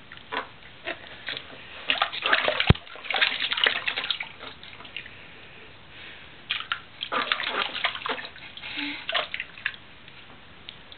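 Water sloshing and splashing in a baby bath in irregular bursts, busiest about two seconds in and again from about six and a half seconds, with one sharp knock at about two and a half seconds.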